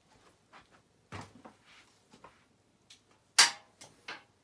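A few scattered knocks and clicks of someone moving about and handling things, with one sharp knock about three and a half seconds in.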